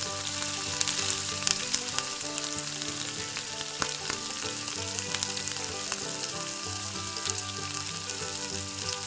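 Strands of rice-flour and gram-flour janthikalu dough deep-frying in hot oil as they are pressed into the pan: a steady sizzle with many small pops.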